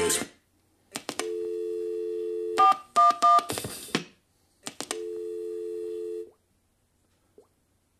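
Music cuts off, then a telephone dial tone plays for about a second and a half, followed by three short touch-tone keypad beeps and a few clicks, then the dial tone again for about a second and a half.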